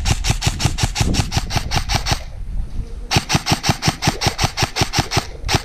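Airsoft electric gun firing full-auto in long bursts, about eight shots a second: one burst stops a little over two seconds in, a second runs for about two seconds, and a third starts near the end.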